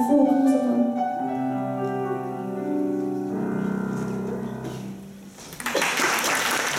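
Grand piano playing a short melodic phrase of single notes and chords that rings out and fades, then audience applause breaks out about five and a half seconds in.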